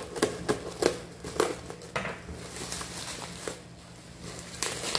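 Plastic bubble wrap being cut open and pulled off a wooden bowl: crinkling plastic with quick sharp crackles, busiest in the first couple of seconds and again near the end.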